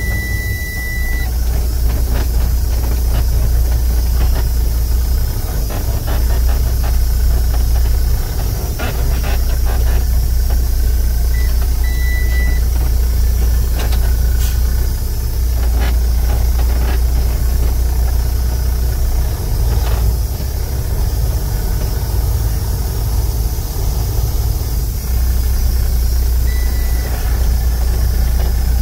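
The Mercedes 12.8-litre inline-six diesel of a Sterling L9500 dump truck running, heard from inside the cab as a steady low rumble. A short high-pitched beep sounds near the start and again briefly about halfway through, with a few light clicks.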